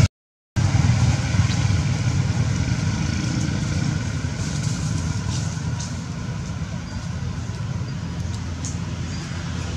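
Steady low rumble of outdoor background noise, slowly getting quieter, with a few faint high ticks in the second half.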